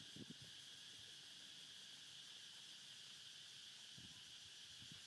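Faint, steady high-pitched insect chorus, with a couple of soft low thumps about a quarter second in and again about four seconds in.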